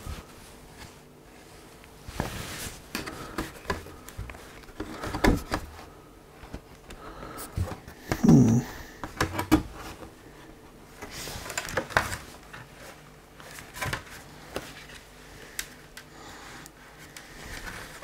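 An LG Gram 16-inch laptop's bottom cover being handled and pried at by hand: scattered clicks, knocks and short scrapes against its edges and tabs. About eight seconds in comes a short grunt that falls in pitch.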